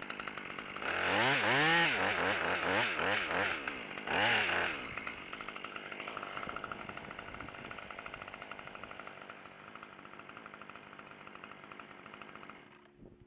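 Husqvarna T540 XP two-stroke top-handle chainsaw revved hard several times in quick rising-and-falling swells, then running at a lower, steady speed until it drops away just before the end.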